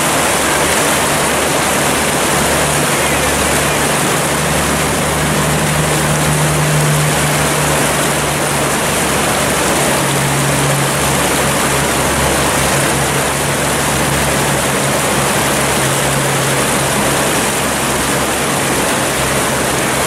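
Whitewater river rapids rushing, a steady, even noise of churning water.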